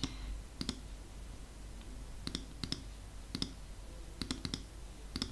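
Sharp computer clicks while editing, about eight spread over a few seconds, several in quick pairs, over a faint low hum.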